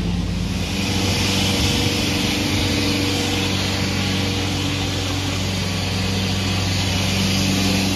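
Engine-driven construction machine at street works running steadily and loudly: a low motor hum under a strong hiss that drowns out other sound.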